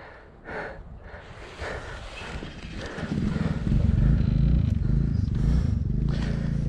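Small single-cylinder bike engine running, fainter at first, then a loud, steady low chugging from about three seconds in.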